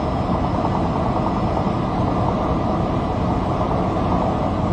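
Steady low engine drone with a faint constant whine, even and unbroken throughout.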